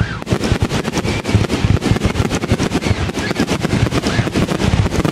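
Fireworks barrage: a rapid, unbroken run of bangs and crackling reports, many a second.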